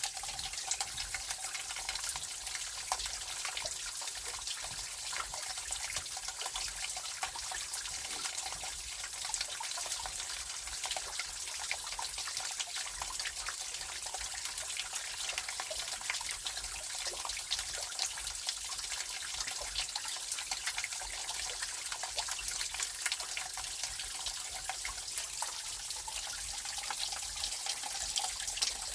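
Mountain stream water trickling and splashing steadily, with many small drips and splashes throughout.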